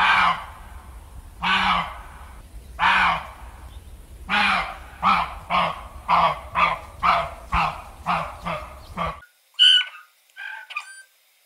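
A series of loud animal calls, about a second and a half apart at first, then quickening to roughly two a second. They stop abruptly about nine seconds in, and two short, higher calls follow.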